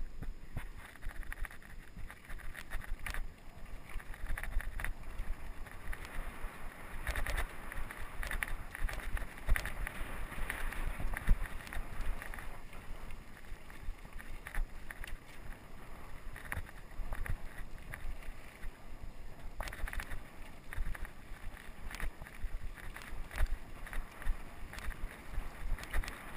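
Mountain bike ridden over a bumpy dirt trail: wind noise on the microphone, tyre and trail noise, and frequent short rattles and knocks from the bike over the bumps.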